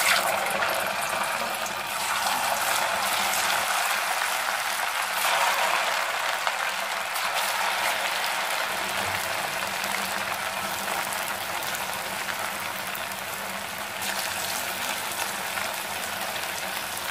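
Slices of boiled taro root deep-frying in hot oil: steady, vigorous sizzling and bubbling, a little louder in the first couple of seconds as the slices go in.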